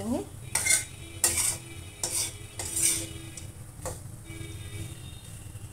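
Metal spatula scraping and stirring a thick, crumbly mixture of roasted flour, ghee and chopped dry fruits around a steel kadhai, about five scrapes in the first four seconds and quieter after, over a low steady hum.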